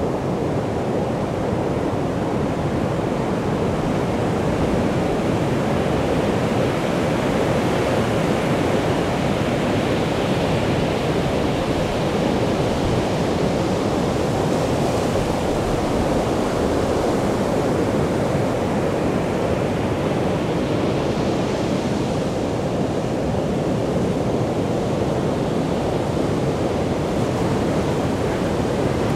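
Sea surf breaking on a sandy beach: a steady rush of waves that swells a few times as bigger breakers come in.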